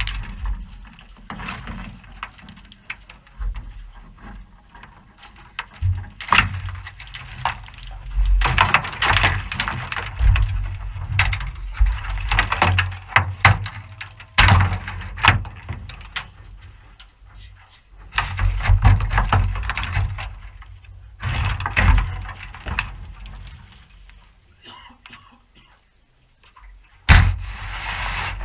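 Willow twigs and branches snapping and rustling in irregular bursts as a person forces a way through dense scrub and onto a rope net, with a brief lull before a last burst near the end.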